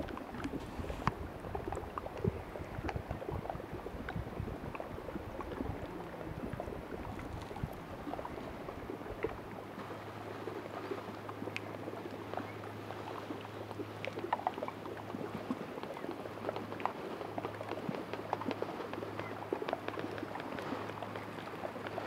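Floating glacial ice crackling and popping: many small, irregular clicks over gently lapping water among the floes, the fizz of air bubbles escaping from melting glacier ice. A low steady hum joins about nine seconds in.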